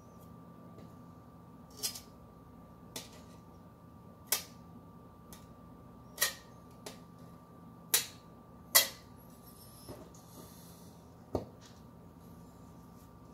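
Fillet knife clicking and tapping against a hard cutting board while a small jack fillet is trimmed: about nine sharp, irregular clicks, the loudest near the middle, over a steady low hum.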